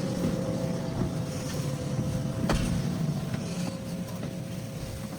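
Steady low machinery rumble with a faint steady hum over it, and a single sharp click about two and a half seconds in.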